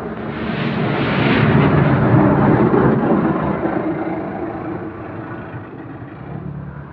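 A passing motor vehicle that grows louder over about two seconds and then fades away.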